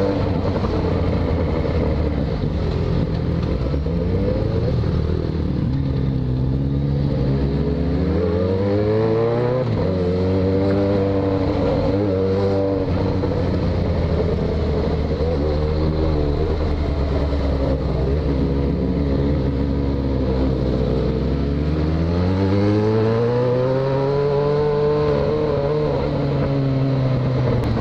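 Yamaha XJ6 600 cc inline-four with a de-baffled exhaust, heard from the saddle while riding in traffic: the engine note climbs and eases off several times as the throttle is opened and closed, with a long pull up through the revs about three-quarters of the way through.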